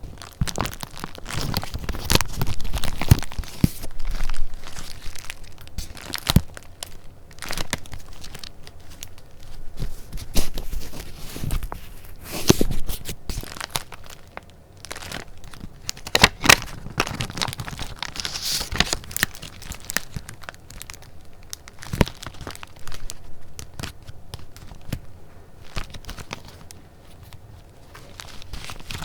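Paper and packaging being handled: irregular rustling and crinkling with sharp crackles as sheets are picked up, flipped and shuffled.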